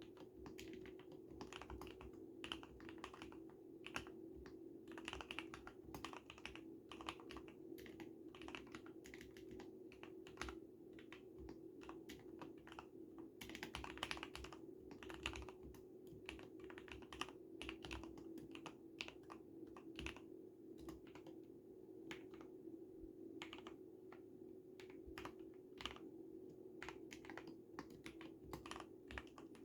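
Quiet, continuous typing on an Akko x Ducky Zero 3087 tenkeyless mechanical keyboard with lubed Cherry MX Red linear switches, dampened by a tape mod and soundproofing foam, giving muted keystrokes in an irregular run. A steady low hum sits underneath.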